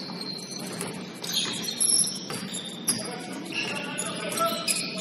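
Basketball game sounds: sneakers squeaking on the court floor in short high chirps, with the ball bouncing and players calling out.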